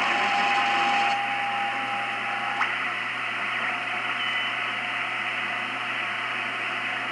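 Shortwave receiver audio: steady band hiss from the speaker with a whistling carrier tone. About two and a half seconds in there is a click, and the whistle jumps to a higher, fainter pitch as the receiver is retuned or switched.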